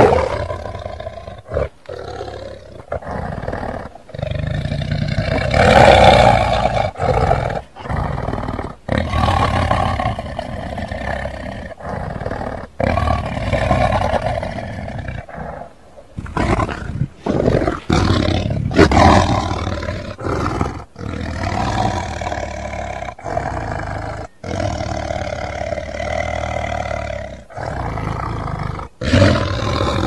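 Custom sound-effect roars for the Scorpius rex, a fictional hybrid dinosaur: a long series of loud creature roars of varying length, separated by short breaks.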